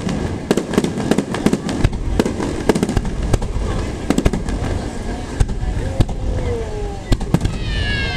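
Aerial fireworks bursting in rapid succession: a dense run of sharp bangs and crackles. A few falling whistling tones come in near the end.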